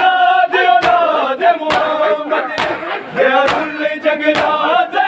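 Men chanting a Punjabi noha (mourning lament) together, with the crowd's unison chest-beating (matam) landing as a sharp slap a little under once a second.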